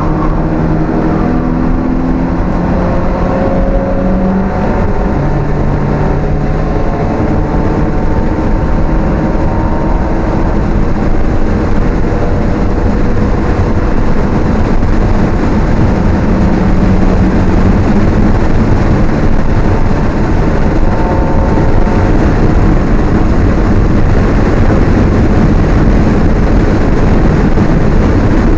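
Alfa Romeo 1750's twin-cam four-cylinder engine under hard driving, heard from inside the cabin. Its note climbs and drops with gear changes over the first several seconds, then is mostly buried under a growing rush of wind and road noise.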